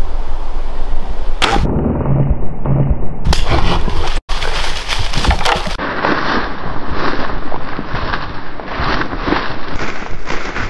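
Bull moose moving through dense brush, with branches cracking and snapping and hooves thudding in a quick, irregular run. The sound changes abruptly several times and drops out briefly about four seconds in.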